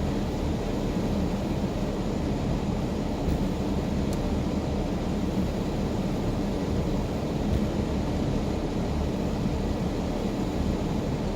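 Steady low rumble of a car driving through snow, engine and tyre noise running evenly.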